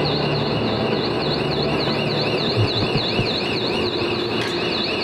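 Subway station alarm sounding: a high warbling tone that sweeps up and down in pitch about three times a second, over steady station noise.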